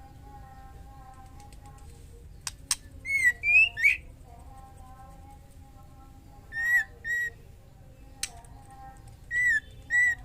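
Female white-rumped shama calling with short, clear whistled notes that bend up and down: a quick run of three about three seconds in, then a pair near seven seconds and another pair near the end. These are the calls a female shama gives when in breeding condition and calling to a male. Two sharp clicks fall between the groups.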